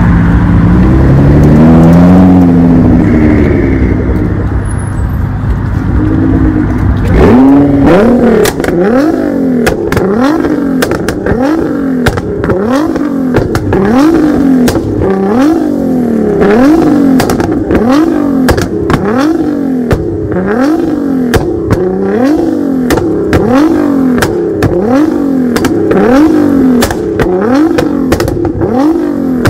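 Nissan GT-R R35's twin-turbo V6 running. For the first several seconds it moves under light throttle. From about seven seconds in it is revved again and again, about once a second, each rev climbing and dropping sharply, with pops and crackles from the exhaust.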